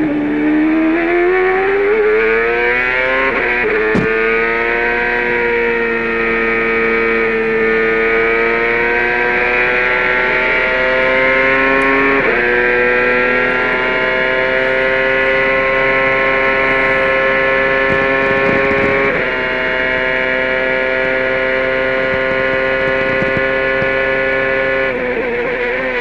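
Toyota turbocharged V8 of a 2002 CART Champ Car at full throttle, its pitch climbing out of a corner and on down a long straight. Quick upshifts come about 3, 12 and 19 seconds in, with the pitch rising ever more slowly in the top gears. Near the end the pitch falls away as the car brakes and downshifts for the next corner.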